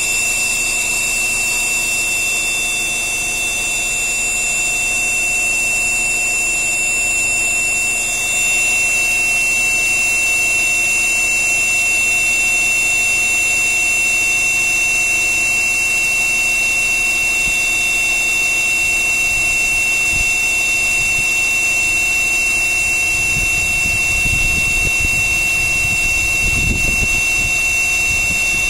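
Air compressor running with a loud, steady, high-pitched whistle over a hiss. A low rumble rises underneath in the last third.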